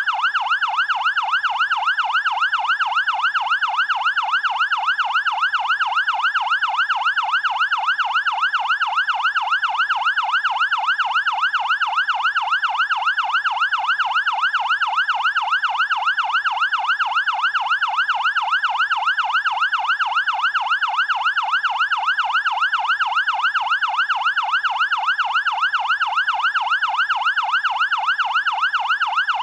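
Fire engine's electronic siren in fast yelp mode: one steady loud tone sweeping rapidly up and down, about three times a second, without a break.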